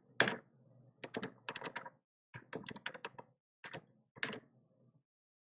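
Typing on a computer keyboard: short runs of quick keystroke clicks with brief pauses between them, stopping near the end.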